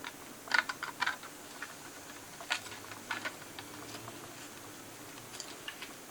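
Scattered light clicks and taps: a quick cluster of four or five in the first second, a few more spaced out after, over a faint steady background hum.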